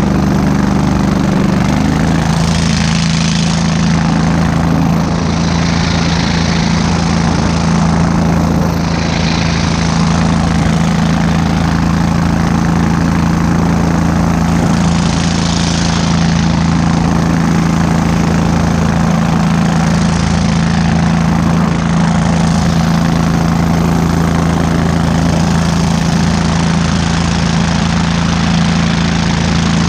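23 hp Kohler engine on a Go Devil long-tail mud motor, running steadily under load as it pushes the boat through shallow swamp water.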